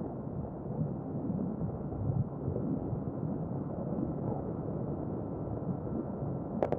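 Steady, muffled wind rumble and running noise of a 2020 Yamaha NMAX 155 scooter held near its top speed, about 97 km/h. A sharp click comes near the end.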